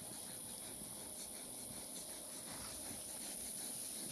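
Steady, high-pitched insect chirring in the pasture, one unbroken shrill tone with a few faint light ticks over it.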